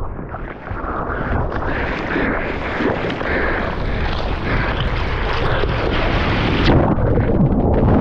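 Surf whitewater rushing and splashing over a surfboard-mounted camera, with wind on the microphone. Near the end the high hiss cuts off suddenly as the camera goes under the foam.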